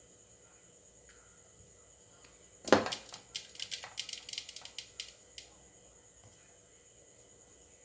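A knock, then a quick run of sharp clicks and rattles lasting about two and a half seconds.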